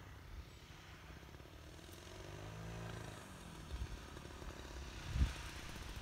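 Faint engine of a giant-scale radio-controlled Grumman F3F model biplane in flight, its note swelling and bending in pitch about two to three seconds in. A brief low thump comes near the end.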